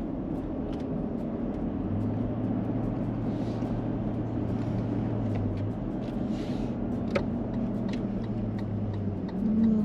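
Toyota LandCruiser 200 Series towing a caravan on the road: steady low engine and tyre drone, with a hum that holds for a few seconds at a time, and a single click about seven seconds in.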